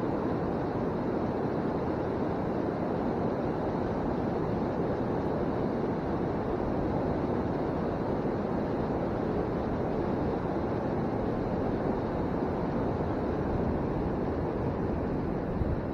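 Steady rushing of river water, an even noise without pitch that holds at one level.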